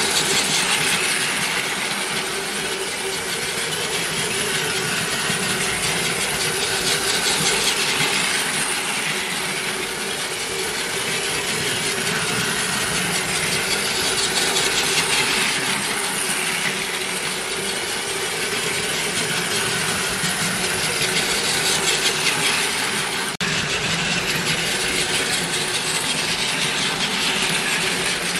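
Several battery-powered Plarail toy trains running on plastic track: a continuous whir of small gear motors with wheels rattling on the rails, growing louder and softer as trains pass near and move away.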